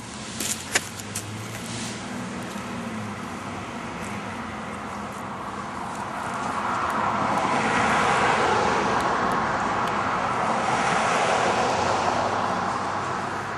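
Road traffic: a vehicle's tyre and engine noise swells about six seconds in, holds for several seconds and fades near the end, with no horn. A few sharp clicks sound in the first second or two.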